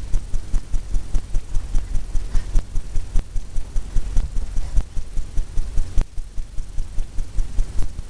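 Paintbrush tapping against a stretched canvas, a steady run of dull taps about four a second as white highlights are dabbed onto the painted water.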